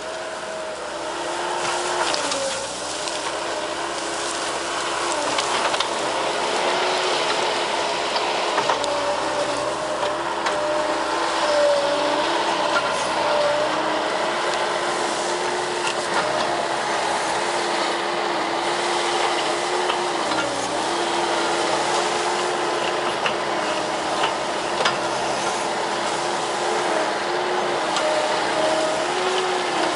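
Bobcat S185 skid steer's diesel engine running steadily at working revs, its pitch sagging briefly every few seconds under hydraulic load, with scattered sharp cracks of brush being sheared.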